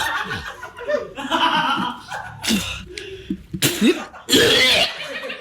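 A person coughing and spluttering, mixed with laughter; the hardest bursts come about four seconds in.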